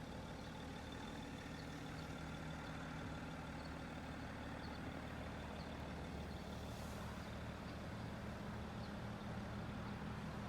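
A steady, faint low mechanical hum with a few constant tones, like a motor or engine running.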